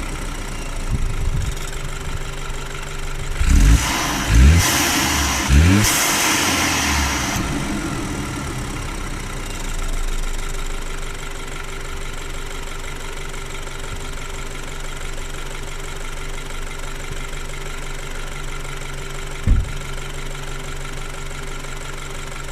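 BMW N20 turbocharged four-cylinder engine idling warm with a light clatter, which the owner hears more in drive than in neutral. Three heavy thumps come between about three and six seconds in, with a burst of hiss. Another single thump comes near the end.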